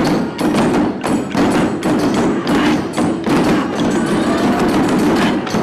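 Taiko drum ensemble playing, a fast run of heavy drum strikes with several hits each second.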